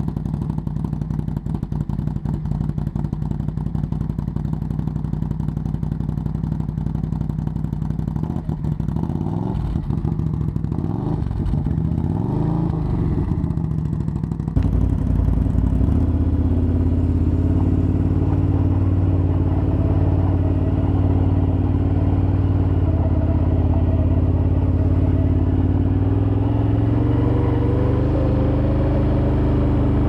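Can-Am Outlander 800 XT ATV V-twin through an HMF Swamp XL slip-on exhaust, idling just after start-up with a few revs in the first half. After a sudden step about halfway it is louder and steady from the rider's seat, rising in pitch near the end as the quad pulls away.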